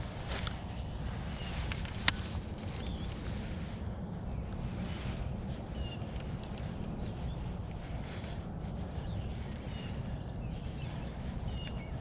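Steady high-pitched insect chorus holding one note, over a low rumble of wind on the microphone. A single sharp click about two seconds in.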